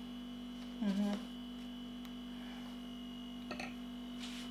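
Steady electrical mains hum, with a constant low tone and a fainter high whine. A short hummed murmur from a person comes about a second in, and near the end there is a light knock as a glass is set down on a table.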